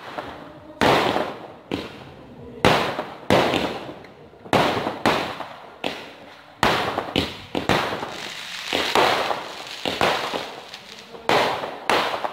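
Aerial fireworks going off: a quick, irregular string of bangs, roughly two a second, each fading off briefly.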